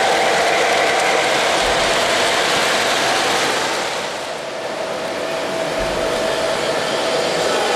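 Three-rail O-gauge model trains running on the layout: a steady whirring of motors and wheels rolling on the track. It dips briefly about halfway through and then carries on.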